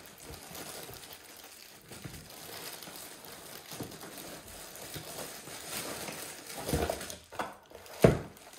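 Plastic wrapping crinkling and cardboard rustling as a bagged massager is pulled out of its box, with a sharp thump near the end as the box is set down on the table.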